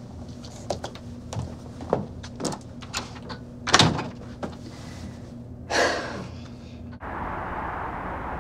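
Footsteps and light knocks in a small room, then a door shutting about four seconds in, followed by a rustle of cloth. About seven seconds in, the sound switches abruptly to a steady, even outdoor noise.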